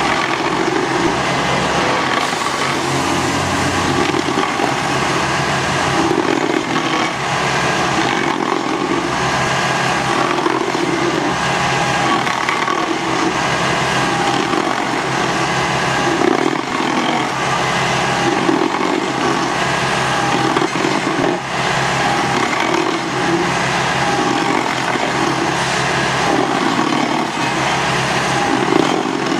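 Ferri stump grinder working, driven by a tractor engine running under load: a steady engine drone with a grinding noise that swells and fades in a regular rhythm as the cutter works.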